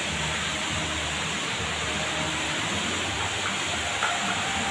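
Steady hiss with a low hum underneath: the background noise of a large, nearly empty mall hall, with a faint short blip about four seconds in.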